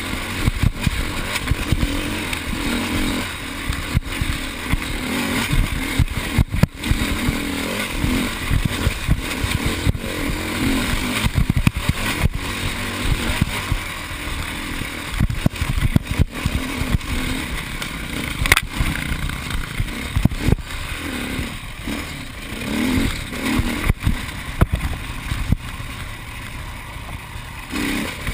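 Enduro motorcycle engine running hard as the bike is ridden over a rough forest trail, its note swelling and dropping with the throttle. Wind rushes on the microphone, and frequent knocks and rattles come from the bumps.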